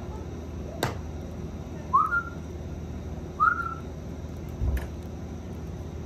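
Two short whistled notes, each a quick upward slide, about two and three and a half seconds in. A sharp click comes a little under a second in, and a dull thump near five seconds.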